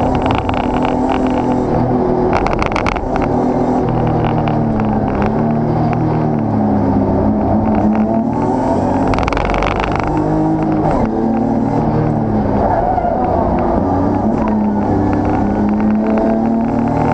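BMW race car's engine heard from inside the cockpit, revving hard and falling in pitch several times as the driver lifts and changes gear. Two brief bursts of hiss about two and a half and nine seconds in.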